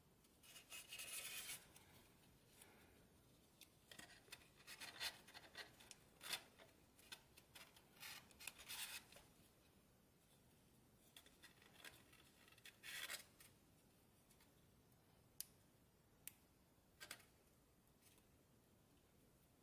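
Origami paper crinkling and rustling in faint, irregular bursts as fingers fold and crease a small model, with a few sharp paper clicks near the end.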